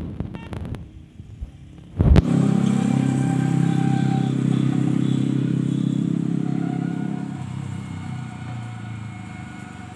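A road vehicle's engine running steadily, then fading over the last couple of seconds. A sharp click comes about two seconds in, just before the engine sound comes up.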